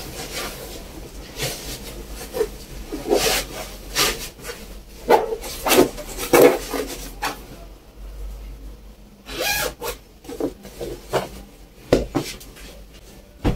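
Fabric rustling and rubbing in irregular swishes as a pillow is worked into a thick red Christmas pillow cover.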